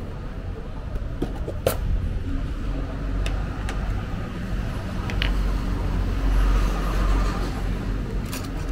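Road traffic going by: a steady low rumble that swells as a vehicle passes about six to seven seconds in. A few short, sharp clicks come in the first half.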